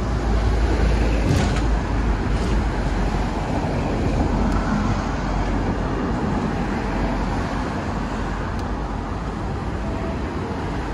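Hong Kong double-decker tram running along the street, heard from on board: a steady low rumble with street traffic noise, and a couple of faint clicks in the first few seconds.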